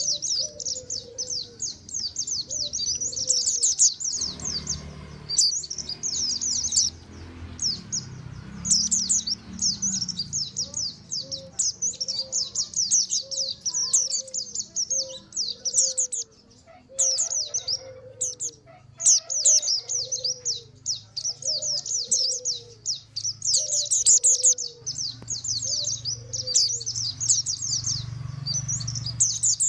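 Mountain white-eyes (pleci montanus) chattering in a busy flock, with fast, high-pitched twittering trills that barely pause. Through the middle, a lower falling note repeats about once a second behind them.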